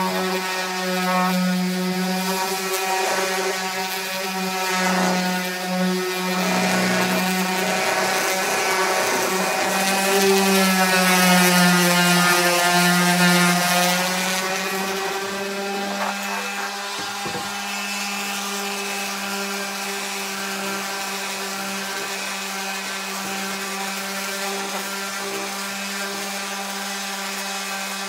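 Electric random orbital sander running steadily as its pad sands the rounded edge of a pine board, a motor hum under a rough sanding noise. About halfway the sound grows louder and the motor's pitch dips for a few seconds, then it runs on more evenly.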